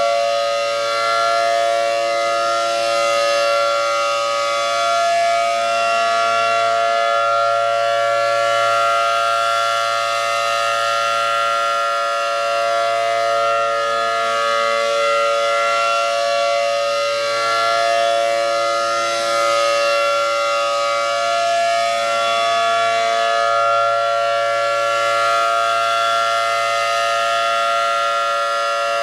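Mobile siren sounding a steady, unbroken tone during a test alert, its pitch holding level with only a slight waver.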